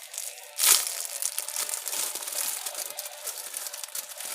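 Plastic packaging crinkling as it is handled, an irregular crackle with one louder crunch a little under a second in.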